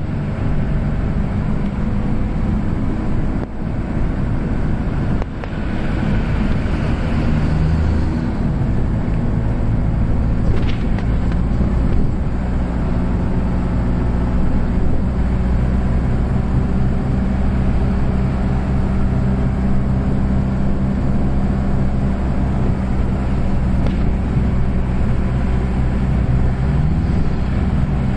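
City bus engine running with road noise, heard from inside the bus as it drives along; the engine note stays steady with a brief shift in pitch several seconds in.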